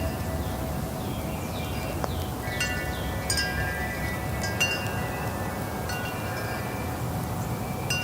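Wind chimes ringing irregularly, several clear tones struck and overlapping as they ring on, over a low steady rumble.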